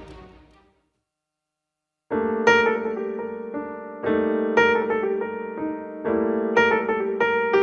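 Background music fades out, followed by a second or so of silence; then solo piano music begins about two seconds in, with chords struck roughly every half second to second and a half.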